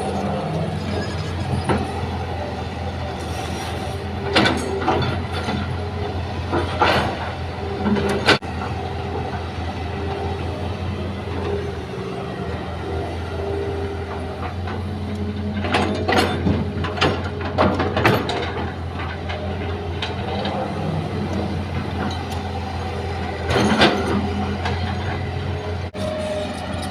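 Hitachi hydraulic excavator working: a steady diesel drone with a wavering whine over it, broken every few seconds by loud clanks, scrapes and rattles as the bucket digs and loads sand and gravel.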